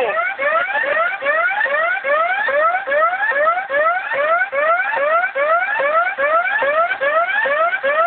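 Wheel of Fortune arcade machine sounding an electronic alarm, a rising whooping tone repeated about three times a second, which marks a win.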